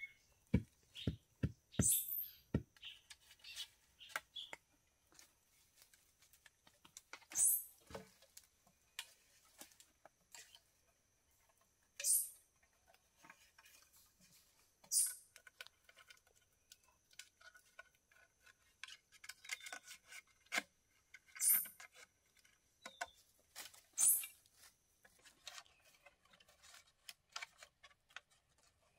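A few sharp chopping knocks of a blade striking wood in the first couple of seconds. After that, a bird gives a short, high, rising call every few seconds over a steady high insect whine, with light clicks and rustles from bamboo being handled.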